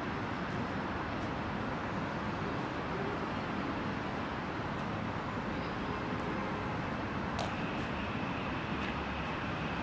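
Steady city traffic noise: an even, continuous rumble and hiss with no distinct events.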